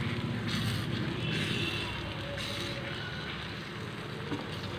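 Thick jackfruit halwa sizzling in ghee as it is stirred and scraped with a wooden spatula in a pan, a steady sizzle over a low rumble with a few scraping strokes. The paste is thickening to its halwa consistency.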